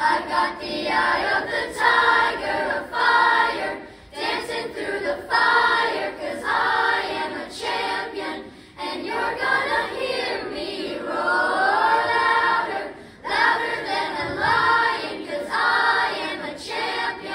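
Children's choir of about sixth-grade age singing together, phrase after phrase, with brief breaks for breath between phrases.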